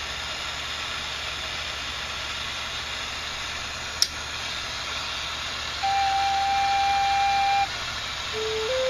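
Native American flute played to check its tuning: one clear note held for about two seconds, then a run of notes stepping up the scale near the end. Under it is a steady hiss from the fire used to heat the hole-burning rod, with a single sharp click about four seconds in.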